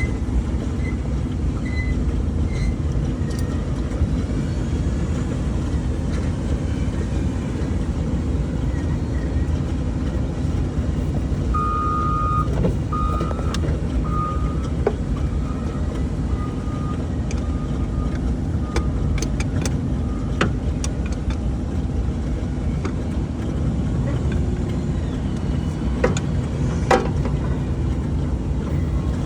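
An engine running steadily with a low rumble. A short series of faint beeps, fading away, comes about halfway through, and a few sharp clicks come near the end.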